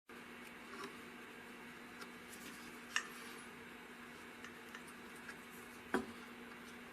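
A few sharp, light clicks and taps over a faint steady hum, the two loudest about three seconds in and just before the end.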